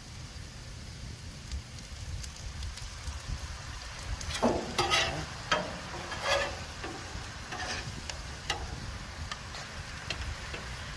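Onions and honey sizzling on a flat-top griddle. From about four and a half seconds in, a metal spatula scrapes and turns them in a series of short strokes to keep the honey from burning.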